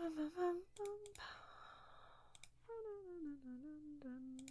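A woman humming to herself in short wordless phrases, with a breathy sigh about a second in and a longer hummed line falling in pitch over the second half. Light sharp clicks sound here and there.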